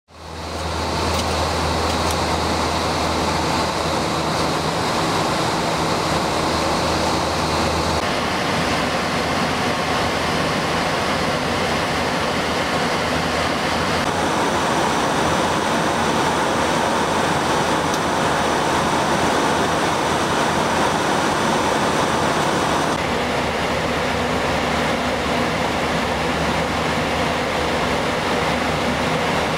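Steady rush of airflow and engine noise on a Boeing 737 flight deck in cruise, with a faint low hum. It fades in at the start, and its tone shifts abruptly three times where separate recordings are cut together.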